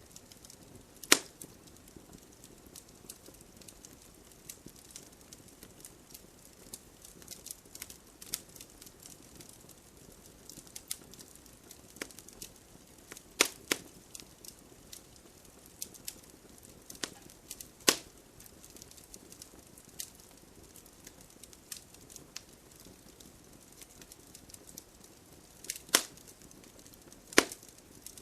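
Campfire burning: frequent small crackles and ticks over a soft hiss, with a few sharp louder pops of the burning wood, about five in all.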